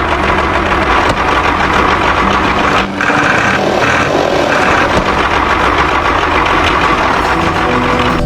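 Mini well-drilling machine running with a steady, loud mechanical drone, briefly dipping about three seconds in.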